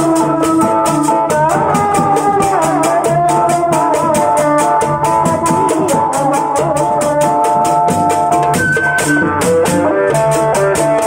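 A village street band plays a song: a melody on a guitar amplified through horn loudspeakers, over hand drums and a fast, steady rattling percussion beat.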